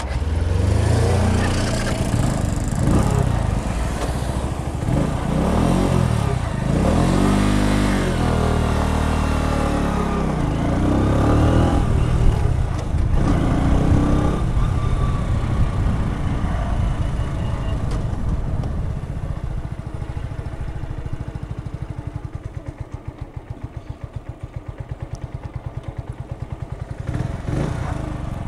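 Keeway Superlight 125 motorcycle engine revving up and easing off several times as the bike pulls away and changes speed, with wind noise over the microphone. About halfway through it settles to a steady, quieter putter, then picks up again near the end.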